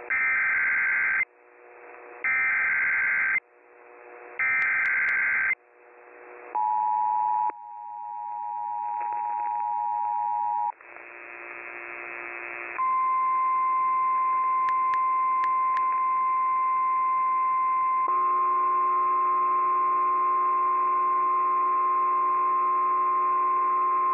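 Emergency Alert System activation for a tornado warning: three short screeching digital header bursts about a second apart, then the two-tone EAS attention signal, then a long steady single-pitched alert tone, typical of the tone a NOAA Weather Radio relay sends ahead of its spoken warning.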